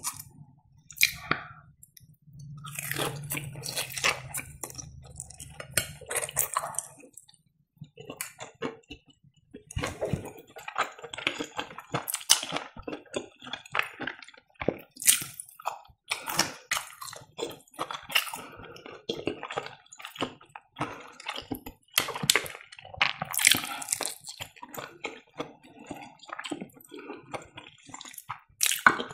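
Close-miked chewing of breaded fried cheese: sticky, wet mouth sounds and smacks with crisp crunches of the crumb crust, in an irregular stream. A low hum sits under the chewing for a few seconds near the start.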